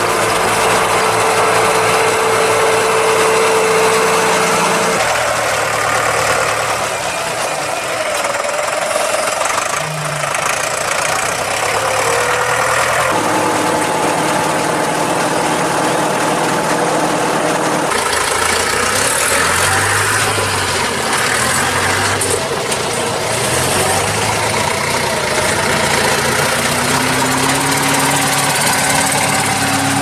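Deutz-Fahr tractor engines running steadily while working, one tractor pulling a round baler-wrapper and another carrying a round bale. The engine note changes abruptly three times as one clip gives way to the next.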